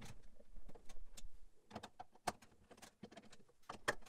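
A screwdriver with a T27 security Torx bit working loose the bolts on a steel gun rack's boot and bracket: irregular metal clicks and knocks of tool against bolt and bracket.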